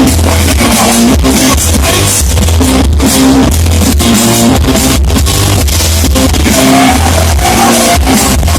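Live rock band playing: electric guitars, bass and drum kit, with a note rising near the end. The recording is loud and distorted.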